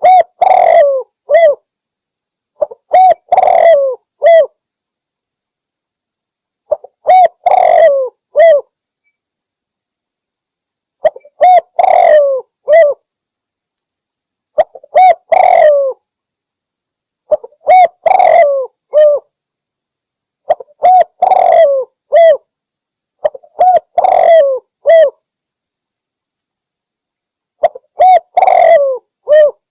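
Spotted dove (Javan derkuku) cooing close up: a phrase of a few quick coos ending in a separate short note, repeated about every three to four seconds.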